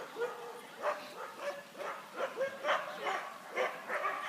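Harnessed sled-team huskies barking and yelping over and over, a busy chorus of short calls coming about twice a second: the excited noise of sled dogs at the start of a run.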